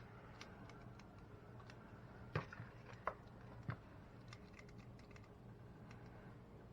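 Light clicks and taps of a mini scooper and utensils as cream cheese filling is portioned into a mini muffin pan, with three louder clicks between about two and a half and four seconds in. A low steady hum runs underneath.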